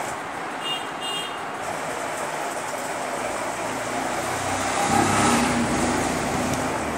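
Steady motor-vehicle engine rumble, growing louder about five seconds in and then easing off.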